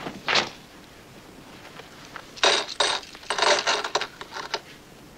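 Metal coins clinking as they are dropped onto a pile, in several short bunches of clinks.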